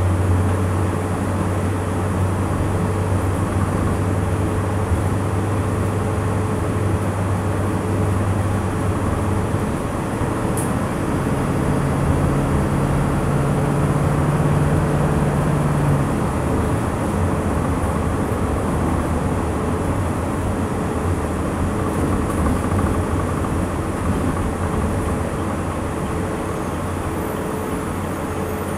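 Cabin noise of a 2009 ARBOC SOM bus under way: the GM Duramax 6.6 L V8 turbodiesel drones along with steady road and rattle noise. The low drone gives way to a higher-pitched drone about midway for a few seconds, then settles low again, as the engine speed changes with the 6-speed automatic.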